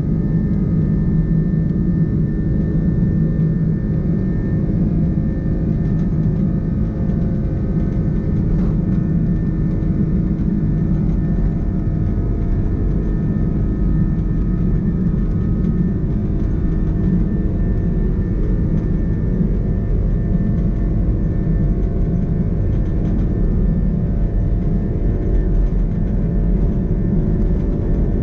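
Airbus A330-200's jet engines running at high thrust on the takeoff roll, heard from inside the cabin as a loud, steady rumble with a few steady whining tones over it, together with the low roar of the wheels on the runway.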